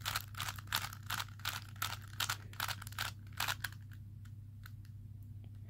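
Rapid plastic clicking of a speedcube's layers being turned, about five clicks a second, stopping about three and a half seconds in.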